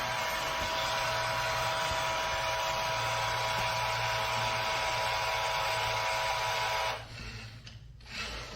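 iRobot Roomba j7+ robot vacuum running, a steady motor whir with a whine, which cuts off suddenly about seven seconds in.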